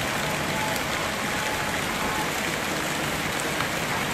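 Steady rain falling on grass and a puddle: an even hiss.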